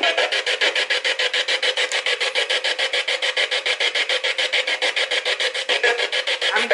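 Spirit box sweeping through radio stations: radio static chopped into a fast, even pulse, about eight a second.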